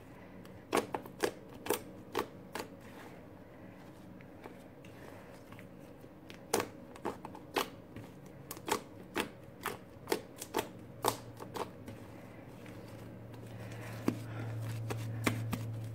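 Fluffy shaving-foam slime being kneaded and squeezed by hand, giving off sharp, irregular pops and clicks. A low hum comes in during the second half and grows louder near the end.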